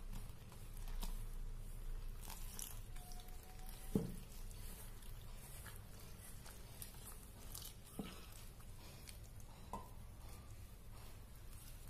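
Rice flour and water being mixed and kneaded by hand in a bowl: faint squishing and crunching of the damp flour, with a few light knocks, the loudest about four seconds in.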